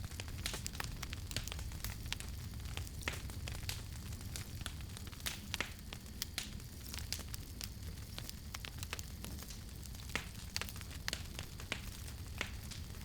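Wood campfire crackling, with irregular sharp pops and snaps over a steady low rumble of burning.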